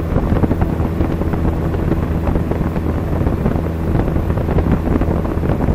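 Cessna 172's piston engine and propeller droning steadily in flight, heard from inside the cabin, with wind noise over the airframe.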